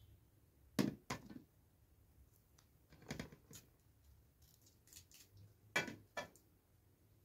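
Garlic being peeled with a small knife over metal dishes: faint scraping and small clicks, with sharp knocks of cloves and knife on metal in pairs about a second in and near six seconds, and a softer one around three seconds.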